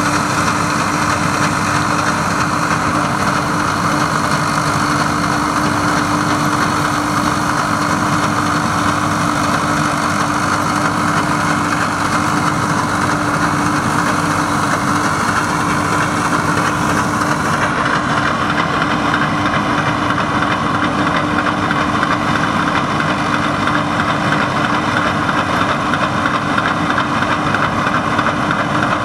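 Claas Columbus combine harvester with a Zetor 4701 diesel engine running steadily while harvesting oats, its engine and threshing works making a constant drone with a steady hum.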